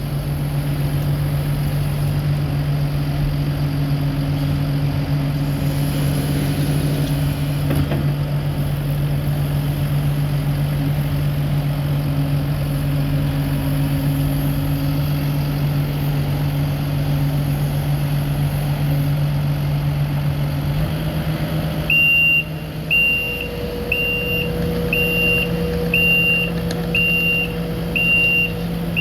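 Kubota SVL75-2 compact track loader's diesel engine idling steadily. About 21 seconds in, the engine note steps up a little and a backup alarm starts beeping about once a second, the signal that the machine is reversing.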